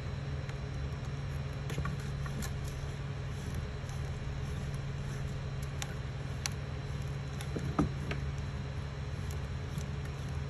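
A Creality Ender 3 3D printer running with a steady low hum. Faint light clicks are scattered through it, and there is a brief rising chirp about eight seconds in.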